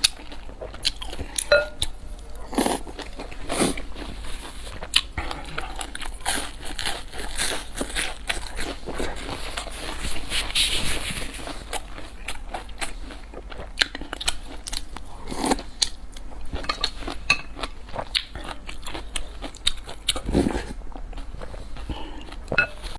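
Close-miked eating: a person chewing and crunching food, with frequent sharp smacks and clicks throughout.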